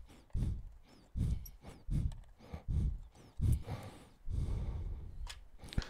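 Hands taking apart a small plastic USB audio mixer: Torx screws backed out of the input jacks and the case handled, giving soft low bumps and rustles about once a second, a longer scraping rustle around four seconds in, and two sharp clicks near the end.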